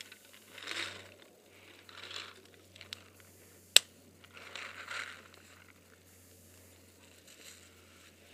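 Footsteps crunching in snow, a few scattered crunches, with one sharp click a little before the middle.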